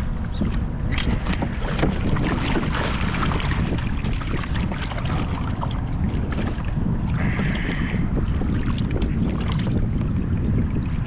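Wind buffeting the microphone over open sea, a steady low rumble, with scattered small clicks and knocks of fishing tackle being handled on a kayak. A short buzz sounds about seven seconds in.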